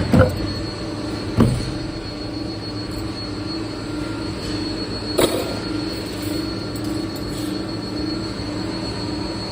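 Wire-processing machine running with a steady hum and a thin high whine, with three sharp clanks in the first half.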